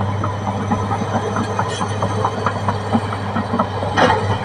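Caterpillar D6R XL bulldozer running, its diesel engine a steady low drone under the irregular clank and rattle of its steel tracks, with a brief louder burst of noise near the end.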